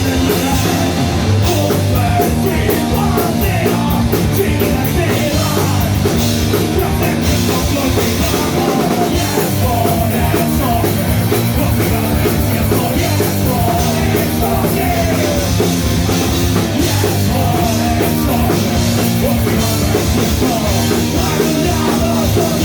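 Live punk rock band playing loud and fast: distorted electric guitars, bass and a pounding drum kit, with sung and shouted vocals.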